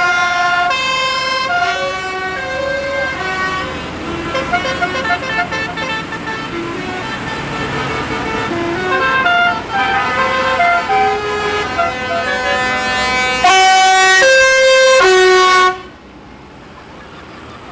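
Vehicle horns on parading tractors sounding again and again at several different pitches, some overlapping as chords, with a quick run of short toots partway through. A long, loud horn blast comes in about thirteen seconds in, lasts about two seconds and cuts off.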